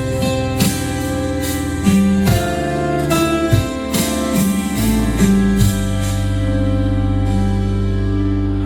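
Background instrumental music with plucked guitar-like notes over a held bass, which thins out near the end.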